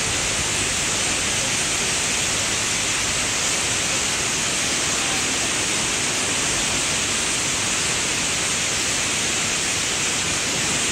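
A huge roost of European starlings chattering all at once, the calls merging into a steady, high hiss-like din.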